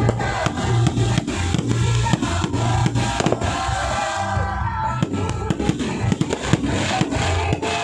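Fireworks banging and crackling in quick, irregular succession over loud music with a steady pulsing bass beat.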